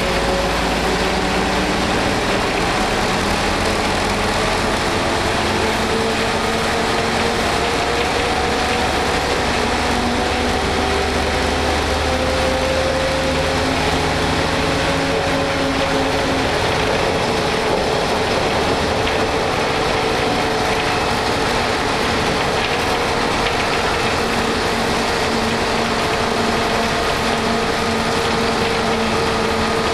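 Inside a 1988 Ikarus 280.03 bus under way: its underfloor six-cylinder Rába diesel engine runs steadily under the floor, with road noise and body rattle. The engine note rises and falls as its speed changes, and it has a heavy low rumble in the first half.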